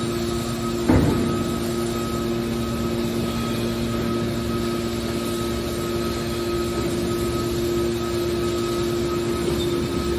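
Hydraulic metal baler running, its power unit giving a steady hum of several fixed tones, with a single sharp knock about a second in.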